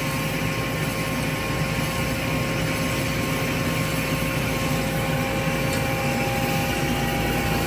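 Hyd-Mech H16A horizontal band saw running in automatic cycle, its blade cutting through metal bar stock. Its motors give a steady hum with a steady whine over it, and a second whine joins about five seconds in.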